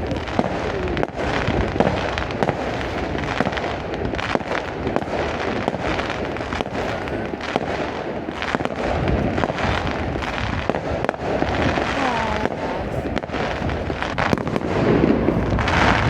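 Fireworks display: a rapid, continuous string of bangs and crackling bursts, a little louder near the end.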